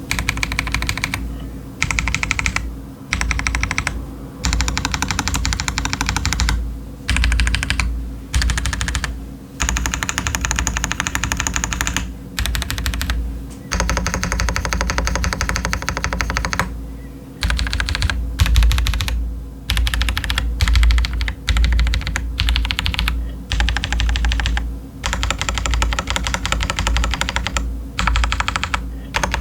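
Typing on a stock, unmodded Feker Alice 80 mechanical keyboard with TTC Chaotic Panda tactile switches and Cherry-profile doubleshot ABS keycaps: fast keystroke clatter in bursts of a second or few, broken by short pauses.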